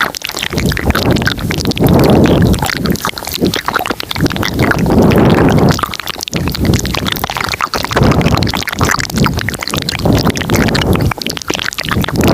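Layered ASMR mouth sounds close to the microphone: dense clicks and smacks over recurring swells of breathy, rumbling noise.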